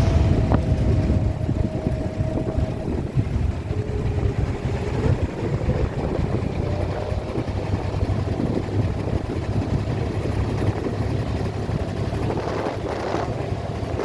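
Boat engine running steadily with a low rumble, with a faint held tone over it for the first few seconds.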